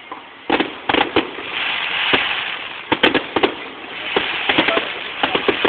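Fireworks going off: a run of sharp bangs starting about half a second in, a stretch of crackling, then more bangs about three seconds in, followed by further crackling.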